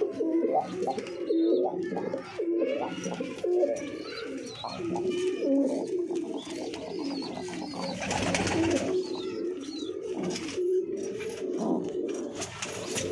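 Domestic pigeons cooing, a cock courting a hen, many low wavering coos overlapping one another, with a brief rustle about eight seconds in.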